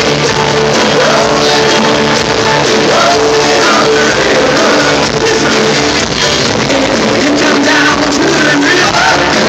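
Live rock band playing loud, with a male lead singer singing into a handheld microphone over guitar and drums.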